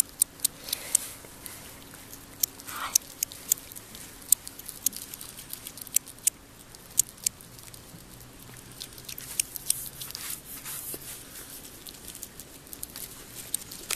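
A European hedgehog chewing food, smacking and crunching in a run of short, irregular clicks, several a second.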